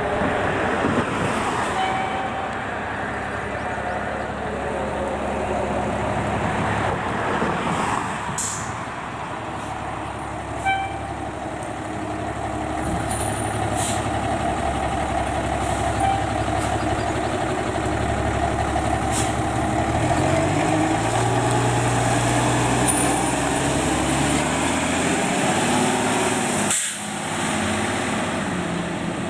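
A 2023 Pierce pumper fire engine's diesel engine running as the truck pulls out of the station bay, with short hisses from its air brakes. Its engine revs climb in steps as it accelerates away.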